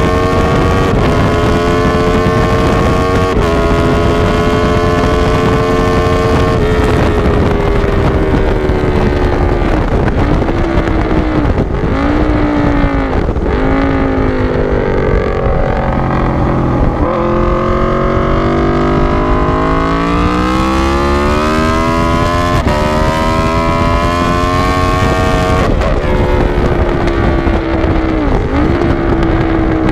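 Sport motorcycle engine heard from onboard at race pace. The pitch climbs under hard acceleration, then drops sharply at each upshift, three times in the first seven seconds. Around 10 to 15 seconds in it falls off under braking with short throttle blips on the downshifts, then climbs through the gears again with more upshifts. Wind noise on the microphone runs underneath.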